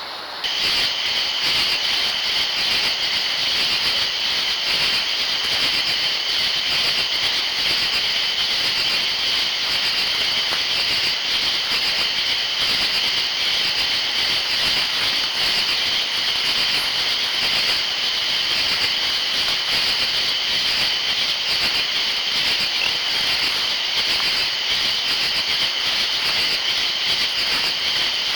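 A steady, high-pitched chorus of trilling insects, starting suddenly about half a second in and holding unbroken.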